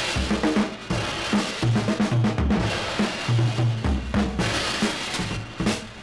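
A 1968 rock 'n' roll 45 single playing a drum-heavy instrumental stretch: busy drum kit hits with no vocal.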